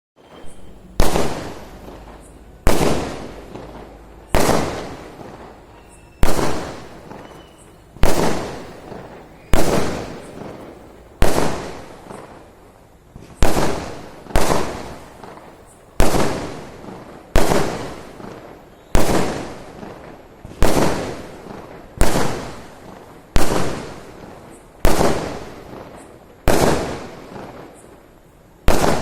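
Firecrackers going off one after another at a steady pace, about eighteen loud bangs, each followed by a trailing echo that dies away before the next.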